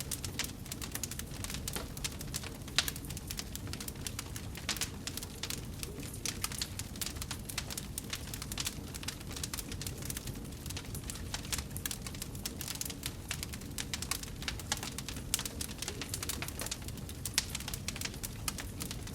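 Wood fire burning in a fireplace, crackling with many small irregular pops over a steady low rush of burning; one sharper pop a little under three seconds in.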